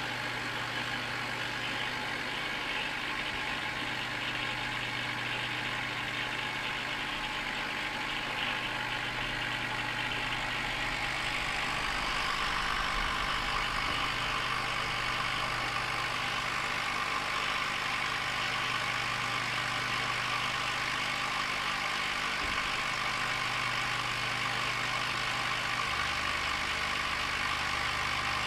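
Steady low hum with an even hiss underneath, the constant running noise of aquarium equipment.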